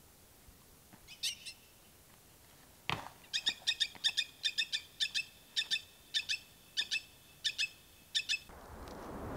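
A small animal gives a long series of short, sharp, high-pitched calls, several a second, after a pair of similar calls about a second in. A single knock comes just before the series, and a rushing noise rises near the end.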